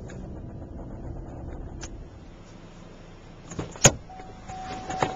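A car's cabin with the engine running low and steady. A few clicks come a little under four seconds in, the loudest a sharp latch click. After it a steady single warning tone sounds.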